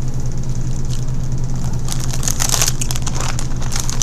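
Steady low hum, with a run of crackly clicks and crinkling starting about two seconds in.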